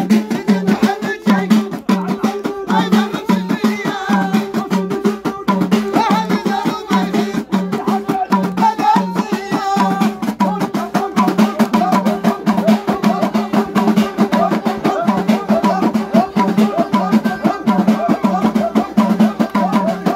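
Moroccan folk percussion: frame drums, a small hand drum and a metal basin struck in a fast, steady rhythm, with men singing along.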